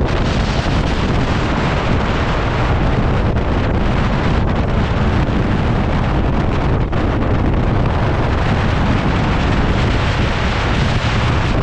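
Wind rushing and buffeting over the microphone outside the window of a moving passenger train, with the train's running noise underneath, steady throughout.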